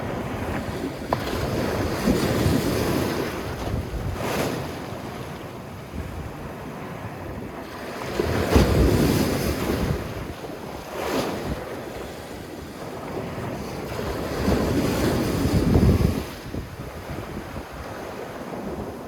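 Sea waves breaking and washing up a sandy beach, swelling in three surges about six seconds apart over a steady wash.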